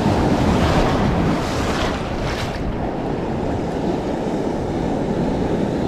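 Ocean surf breaking and washing over a shallow reef close by, swelling briefly about two seconds in, with wind buffeting the microphone.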